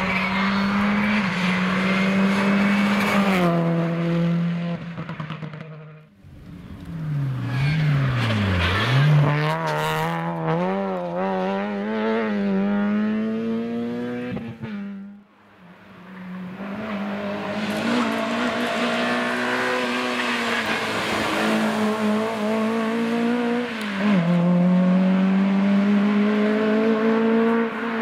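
Rally cars driven hard on a tarmac stage, one after another. Each engine revs up through the gears, with the pitch dropping at each gear change and quick up-and-down revs while slowing for a bend.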